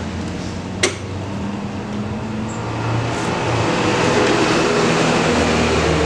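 Motorcycle engine running steadily, with one sharp click a little under a second in.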